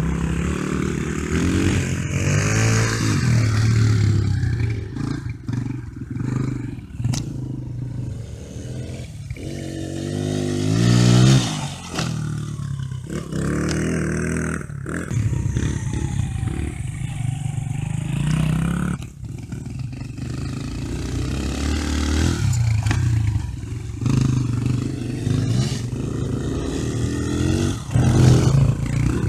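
Dirt bike engines revving and accelerating, their pitch repeatedly climbing and then dropping. The engine note is loudest about eleven seconds in and again near the end.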